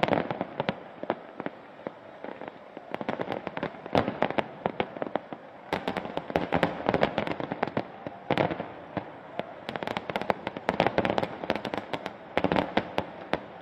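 Aerial fireworks bursting into crackling stars: many rapid sharp pops and crackles coming in dense clusters every second or two.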